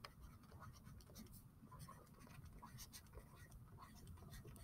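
Near silence with faint scratching and small clicks of handwriting strokes as words are written out.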